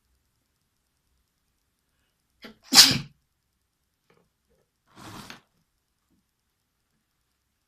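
A person sneezing once, loudly, about two and a half seconds in, with a short intake of breath just before it. About two seconds later comes a softer, shorter breathy sound.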